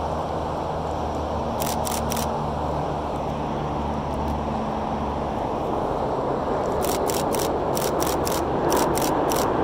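DSLR shutter firing: three quick frames about a second and a half in, then rapid bursts of about ten frames over the last three seconds. Behind it, a steady rumble of jet noise and highway traffic that grows louder near the end as the jet formation approaches.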